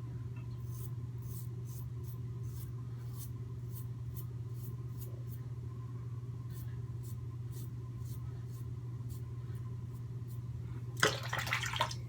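Merkur 34c safety razor scraping through coarse stubble on the neck in short strokes, faint scratches about two a second over a steady low hum. Near the end comes a louder noisy burst about a second long with a few sharp knocks.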